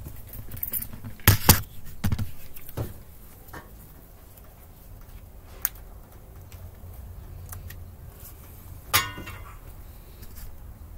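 Handling knocks as the camera is moved and set down, the loudest two close together about a second and a half in, then a few scattered light clicks and one clink with a short ring about nine seconds in.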